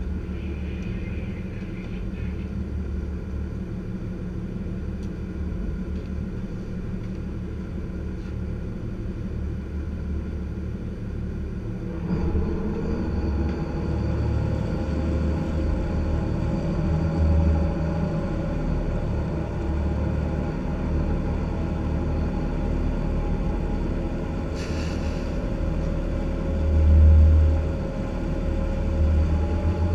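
Lobster boat's engine running steadily, picking up about twelve seconds in, with a brief louder low rumble near the end.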